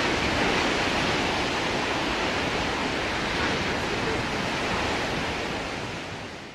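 Steady rushing noise of storm wind and heavy sea, fading out at the very end.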